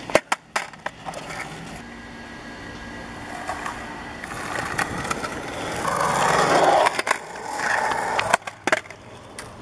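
Skateboard wheels rolling on a concrete skate-park surface, with sharp clacks near the start and near the end. The rolling swells to its loudest about six to seven seconds in, then fades.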